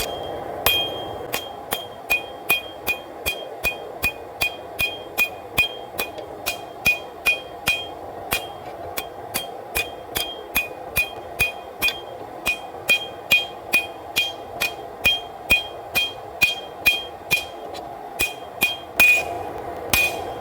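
Hand hammer striking hot W-2 steel on an anvil in a steady rhythm of about two and a half blows a second, each blow ringing with a bright metallic ping. A steady rushing hum runs underneath, and a couple of heavier blows land near the end.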